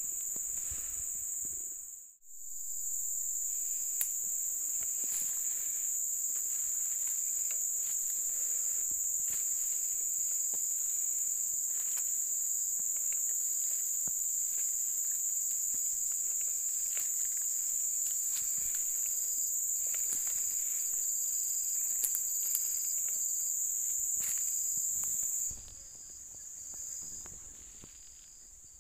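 Loud, steady, high-pitched drone of forest insects, with a fainter insect call pulsing at a regular beat underneath. The drone breaks off for a moment about two seconds in, then stops suddenly near the end, leaving quieter background.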